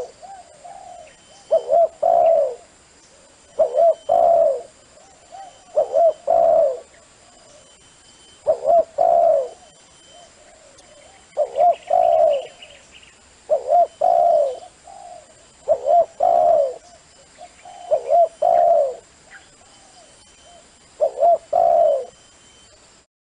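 Spotted dove cooing: a short call phrase repeated about every two seconds, about ten times, stopping abruptly near the end.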